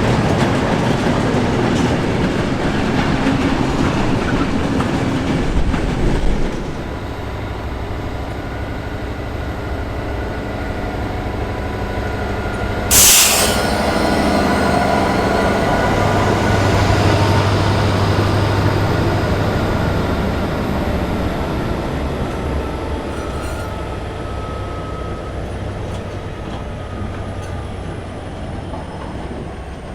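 Class 69 diesel-electric locomotive's EMD 710 two-stroke diesel engine running as the train works along the line. A short, sharp burst of hiss comes about 13 seconds in, then the sound fades slowly toward the end.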